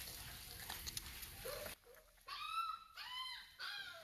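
Nursing puppies whining at the teat: three short, high-pitched whines in the second half. Before them, faint shuffling and suckling noises.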